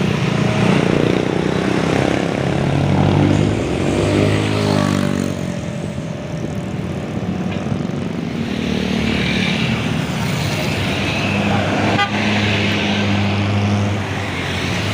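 Large tour bus's diesel engine running as it pulls past close by, its pitch falling about four seconds in. A horn sounds later on.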